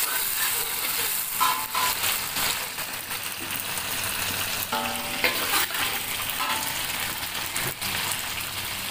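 Ground dried chilli paste and whole spices sizzling steadily in hot oil in a stainless steel wok, being sautéed until slightly crisp. A metal ladle stirs through it, with a few short ringing scrapes against the wok.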